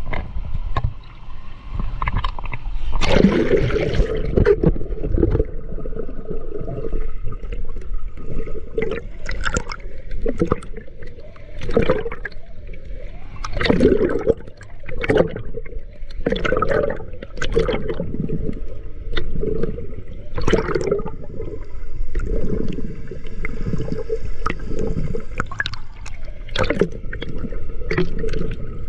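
Water heard from a camera held underwater by a swimmer doing combat sidestroke: bubbling from his exhaled breath and rushing, sloshing water in uneven surges with each stroke. The camera goes under about three seconds in, where the sound gets louder and muffled.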